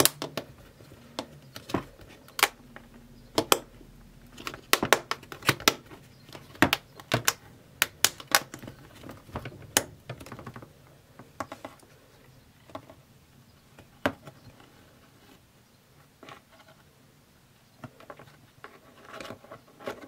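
Irregular clicks and taps of metal tweezers and a spatula against a small clear plastic box, thick in the first ten seconds or so and sparser after that.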